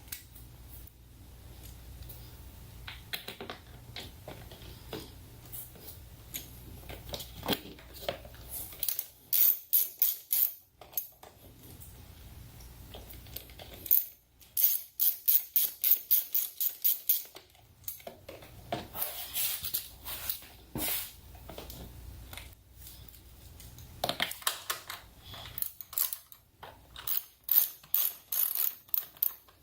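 Hand ratchet clicking in several bursts of quick, evenly spaced clicks, as fasteners are run in while a cover is refitted on a motorcycle.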